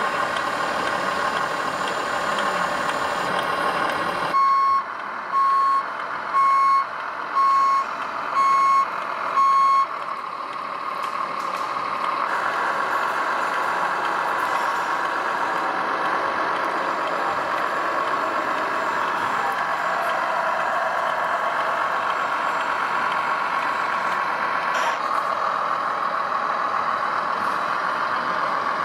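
Electronic sound module of a radio-controlled tipper semi truck playing a steady simulated diesel engine sound. About four seconds in, it gives six reversing beeps, roughly one a second. The engine sound grows louder twice later on.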